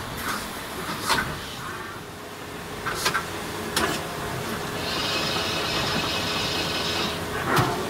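Hitachi Seiki HS 500 horizontal machining center going through a tool change: sharp metallic clunks from the tool changer and magazine, with a high steady whine for about two seconds as the tool magazine chain indexes, over a constant machine hum.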